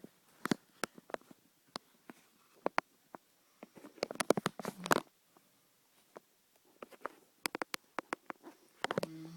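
A sleeping person snoring, each snore lasting about a second and coming roughly every five seconds. One snore falls about halfway through and another starts near the end, with scattered sharp crackling clicks between them.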